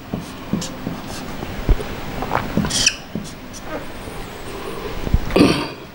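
Marker pen squeaking and scratching on a whiteboard in short strokes as small circles are drawn. A brief voice sound comes near the end.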